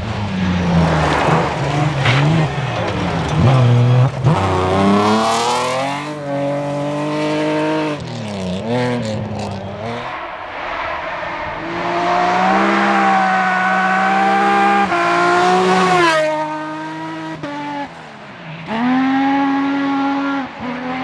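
BMW-powered rally car at full throttle, the engine pitch climbing hard through the gears and dropping sharply several times as the driver lifts off and shifts, then pulling again.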